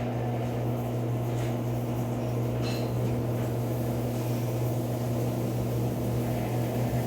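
Electrolux Turbo Economia 12 kg washing machine in its final spin at low speed, the drum turning with a steady low motor hum as the spin nears its end.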